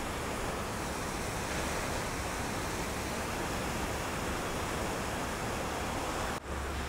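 Steady wash of breaking ocean surf, cutting out for an instant near the end.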